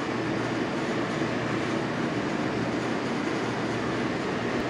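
Steady rushing noise, even and unbroken, with no distinct events in it.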